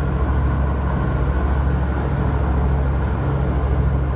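Fishing boat's engine running steadily at cruising speed, a loud low drone, with the rush of the churning wake behind the stern.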